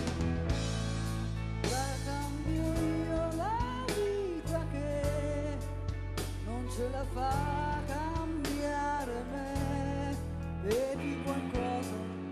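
A woman singing live with a band of electric guitar, drums and bass; the band plays alone at first and her voice comes in about two seconds in.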